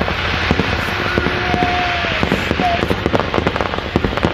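Fireworks display going off: a dense, continuous run of crackling pops and bangs that grows busier near the end.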